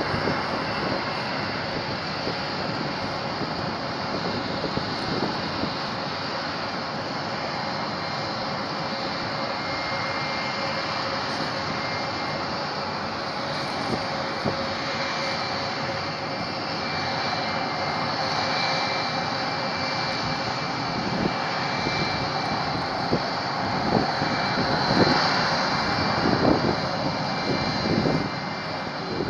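Rockwell B-1B Lancer's four General Electric F101 turbofan engines running as the bomber taxis: steady jet engine noise with a high whine, getting louder over the second half.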